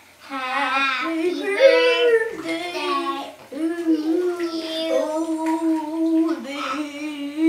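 Young boys singing in high children's voices with no clear words, stretching out long held notes.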